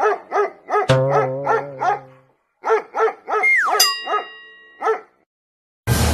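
A dog barking in quick repeated barks, about three a second, in two runs with a short break between them. Added sound effects are laid over it, including a falling whistle-like glide in the middle of the second run.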